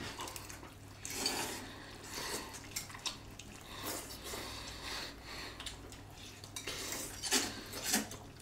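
Several people eating noodles from bowls: utensils clicking and scraping against the bowls now and then, with slurping between, a few sharper clicks near the end.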